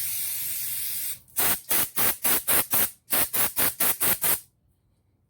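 Aerosol cleaner sprayed onto a ratchet's gear to flush it out: one steady hiss of about a second, then a dozen short spurts of about four a second in two runs, stopping about four and a half seconds in.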